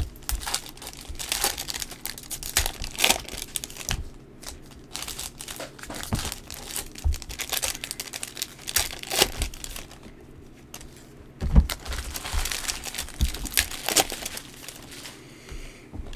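Foil trading-card pack wrappers from 2020 Panini Prizm football retail packs, crinkling and being torn open by hand in a run of irregular crackles and rips, busiest near the end.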